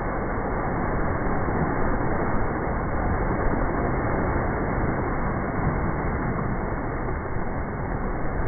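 Seawater rushing off low rock ledges in small cascades and churning into white foam after a wave has washed over the shore: a steady, unbroken rush.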